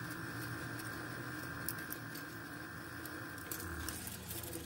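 A vertical milling machine drilling a hole in a metal block with a twist drill: a steady motor and spindle whine with a few light clicks. The higher part of the whine cuts off about four seconds in.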